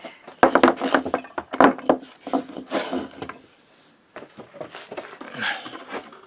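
Wooden blocks knocked and clattering onto a wooden workbench as a Motobécane AV89 moped engine is propped up on them: a quick run of loud wood-and-metal knocks in the first few seconds, then lighter scraping and handling noises.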